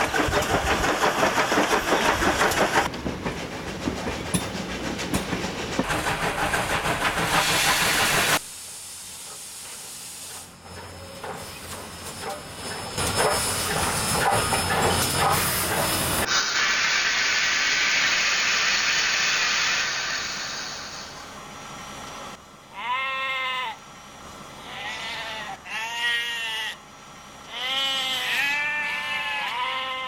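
Steam locomotive chuffing along, loud and rhythmic for the first eight seconds or so, then quieter. About halfway through comes a long steady hiss of steam as it comes to a stand, and near the end several short wavering sheep bleats.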